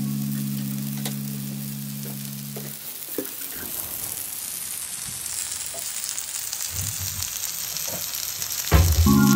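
Zucchini slices frying in oil in a nonstick pan, a steady high sizzle with occasional small pops. Background music fades out in the first few seconds and comes back just before the end.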